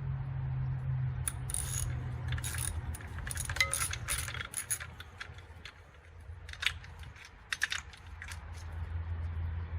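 Scattered metallic clicks and clinks of tools and small parts being handled, over a low steady hum.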